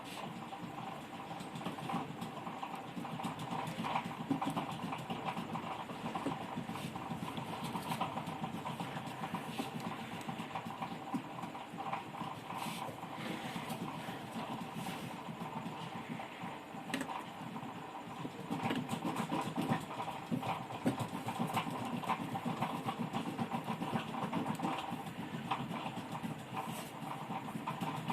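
Irregular light clicks and taps from hand work on a TV power board during capacitor replacement, over a steady background hum.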